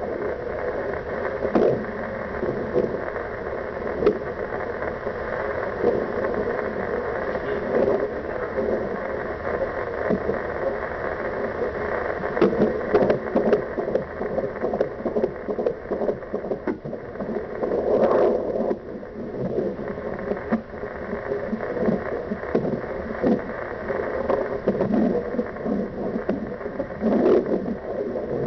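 Fetal doppler speaker giving a steady whooshing static, broken by short thumps at uneven intervals of a few seconds: an unborn baby hiccupping in the womb.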